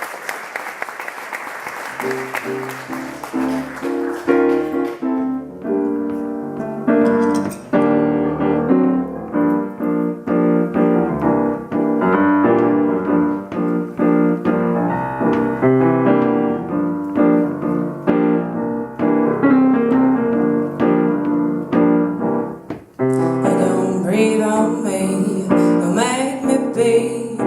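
Applause fades out, then a piano plays an instrumental passage of repeated notes and chords. About 23 seconds in a high hissing sound joins the piano.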